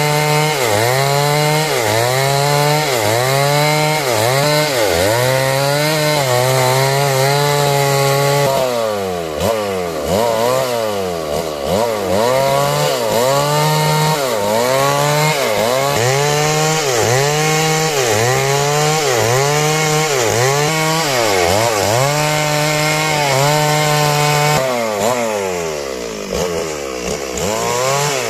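Two-stroke chainsaw running at high revs while sawing through timber, its engine pitch dipping and recovering about once a second as the chain loads in the cut.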